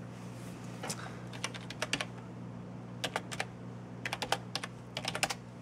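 Typing on a computer keyboard in several short bursts of keystrokes, with pauses between them, over a steady low hum.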